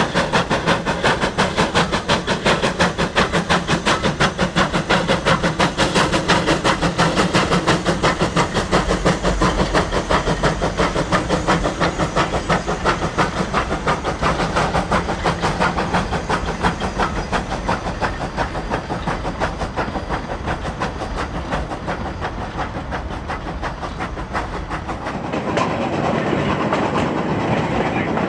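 Narrow-gauge steam locomotive Denver & Rio Grande 425, an 1895 Baldwin 2-8-0 consolidation, working a train, with a fast, even beat of sharp strokes that fades over the second half. Near the end the sound shifts to a lighter, steadier noise with less bass.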